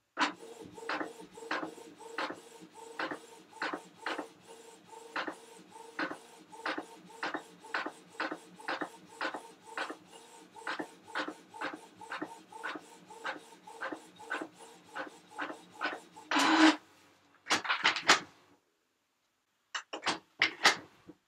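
Printer printing: a steady motor hum under regular sharp clicks, about two to three a second. About sixteen seconds in comes a louder whirring burst, then a couple of shorter bursts and a few last clicks near the end.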